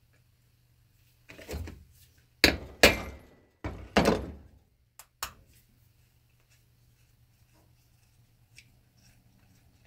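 Hammer striking the metal-capped end of a screwdriver, about six sharp knocks over a few seconds, the loudest three close together in the middle. It is shock-loosening the oil pump screws in a Kawasaki KV75 engine's side case.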